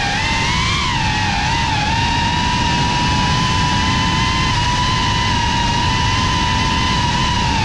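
GEPRC CineLog35 cinewhoop drone's brushless motors and propellers whining in flight, the pitch wavering with throttle for the first two seconds and then holding steady, over a rush of prop wash and wind noise.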